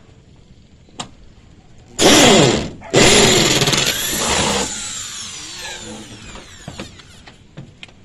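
Handheld electric power tool run in two short bursts, the second one longer, then its motor whining down in pitch for a couple of seconds as it coasts to a stop.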